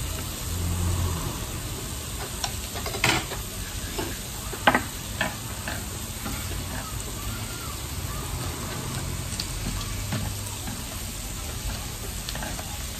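Beef-wrapped enoki mushroom rolls sizzling steadily on a tabletop grill plate. A few sharp clicks of chopsticks against the plate come about three to five seconds in.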